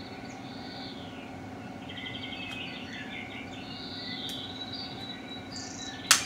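Birds chirping and trilling over a steady background hum of nature ambience. Near the end comes one loud, sharp crack as a crab-leg shell is cut with shears.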